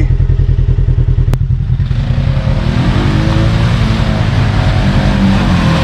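Off-road vehicle engine chugging at low speed, then opening up about two seconds in and accelerating, its pitch rising. A single sharp click just over a second in.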